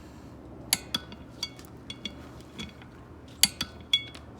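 Sharp metallic clinks of small metal tools or hardware knocking together, about eight of them at irregular spacing, each with a brief ringing; the loudest come near the end.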